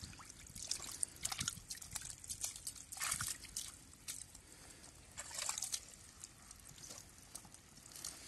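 Muddy water sloshing and splashing in a shallow puddle as a hand gropes through it for fish. The splashes come in irregular bursts, the biggest about three seconds in and again about five and a half seconds in.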